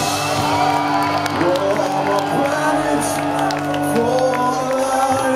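Live rock band holding sustained chords through a club PA while the crowd cheers and whoops.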